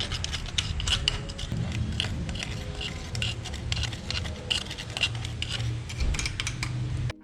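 Screwdriver scraping and clicking against a motorcycle's front sprocket and chain, prying off caked grime: a quick, uneven run of short metallic scrapes and ticks.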